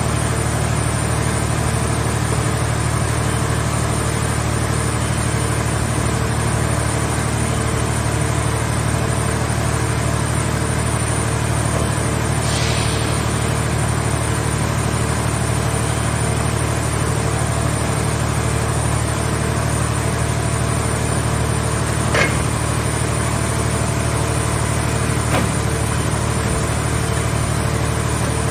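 A scrap car-shell baler's power unit running steadily with a low, even hum, with two sharp clicks in the second half.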